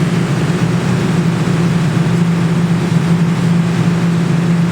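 Steady electric hum and whir of a claw machine's motors as the claw is moved and dropped.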